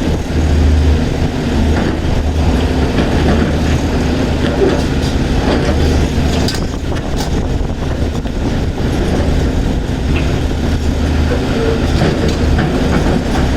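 A heavy diesel machine engine running steadily with a low hum, with a few short knocks or clatters in the middle.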